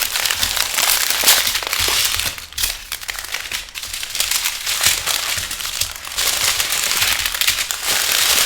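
Small plastic bags of diamond painting drills crinkling and rustling as they are handled.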